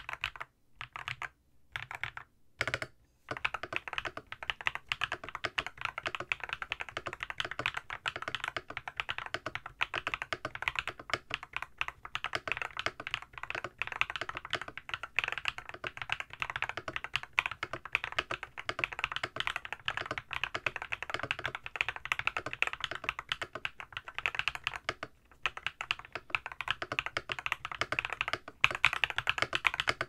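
Monsgeek MG108W full-size mechanical keyboard, tape-modded, with lubed Akko Cream Yellow v3 Pro linear switches and SA profile keycaps, being typed on. A few short bursts of keystrokes, then steady fast typing from about three seconds in; the build sounds more clacky than thocky.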